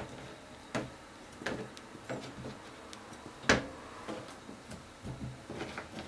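Peeled potato pieces being picked up off a plastic cutting board and dropped into a bowl: a series of irregular knocks and taps, the loudest about three and a half seconds in.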